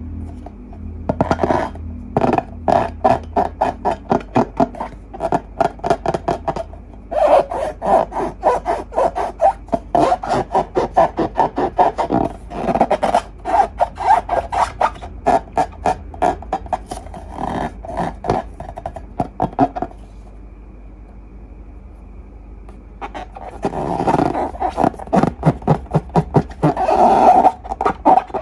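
Glossy slime being squeezed and kneaded by hand, making a fast run of sticky clicks and pops that pauses twice and then turns to a thicker squelching rasp near the end.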